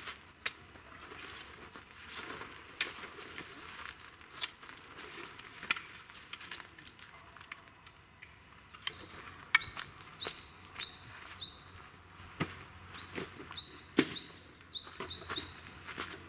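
A dome tent being taken down: nylon fabric rustling and scattered clicks and knocks of the tent poles being handled. From about nine seconds in, a small bird sings a series of quick, high, rising chirps, several a second.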